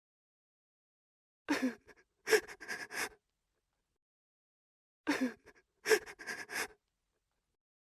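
A person sobbing in two short bursts, each a brief voiced cry followed by three or four quick broken sobs, the second burst about three and a half seconds after the first.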